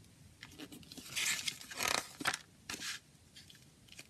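Paper pages of a CD booklet being turned by hand: a burst of rustling and sliding paper, loudest between about one and two and a half seconds in. A few soft brushes follow near the end as the hand smooths the new page flat.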